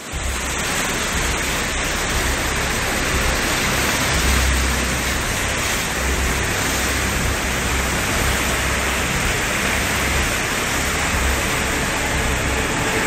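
Steady loud rush of the Serayu river in flood, fast muddy water churning after days of heavy rain, with an unsteady low rumble underneath.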